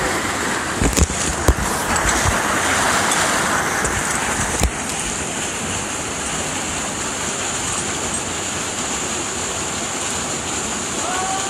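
Waterfall rushing steadily, a continuous roar of falling water. A few sharp knocks sound about a second in, and another near the middle.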